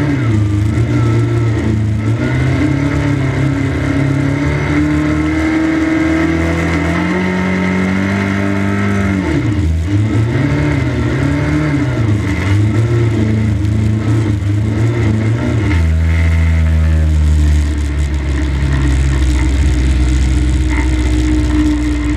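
1300cc stock car engine heard from inside the cockpit, running hard and rising and falling in pitch as the driver lifts off and gets back on the throttle around the bends. After about sixteen seconds it settles into a steadier, lower note.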